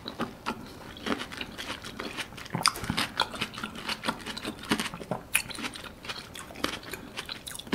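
A person chewing a mouthful of soft canned longan fruit in syrup, close to the microphone: many small, irregular clicks.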